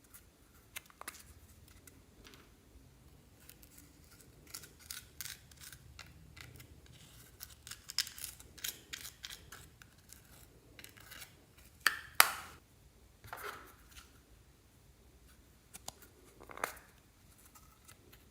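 Clear slime being pressed and worked by hand, giving irregular sticky clicks and crackles, with a couple of louder snaps about two-thirds of the way in.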